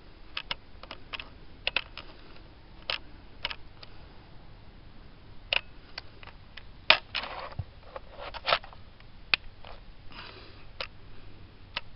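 Irregular plastic clicks and taps as a trail camera is handled and its buttons are pressed, with a couple of brief rustles. The camera gives no response: it does not power on after the battery swap.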